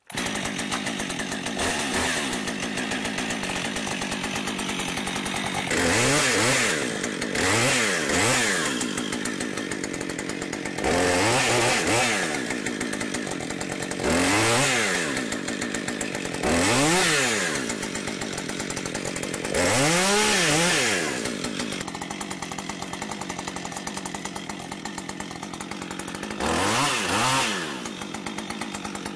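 Chainsaw running at idle and revved up and back down about eight times, its pitch rising and falling with each burst of throttle.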